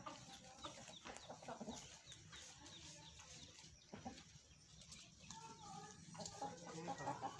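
Chickens clucking softly, with a quick run of faint high chirps in the first couple of seconds.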